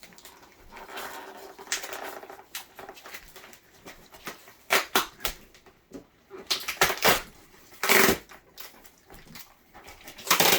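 Packing tape being pulled and ripped off a cardboard shipping box, in several short tearing bursts amid the rustle and knock of the box being handled.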